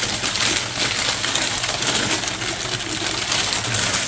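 Newspaper crumpling and rustling steadily as it is pulled off a ceramic cookie jar being unwrapped.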